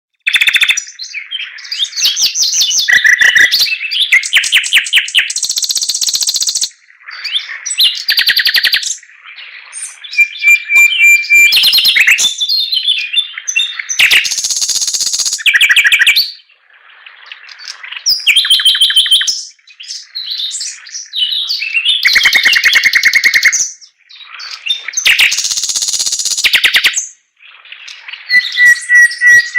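Chinese hwamei (họa mi) singing: loud, varied phrases of rapid repeated notes and trills, each a few seconds long, separated by short pauses.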